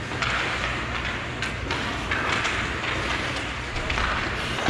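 Ice hockey rink ambience during a game: a steady scraping hiss of skates on the ice echoing in the arena, with a few faint clicks of sticks and puck.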